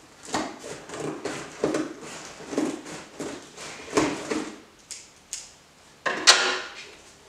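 Cardboard parcel being cut open with scissors: irregular snips, rustling and scraping of cardboard, with a louder scrape about six seconds in.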